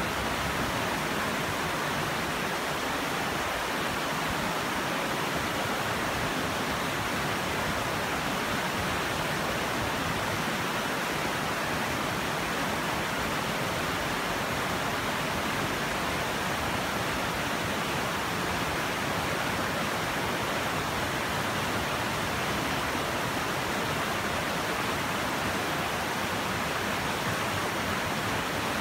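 Shallow, fast river rushing over rocks and boulders in rapids: a steady, even rush of water.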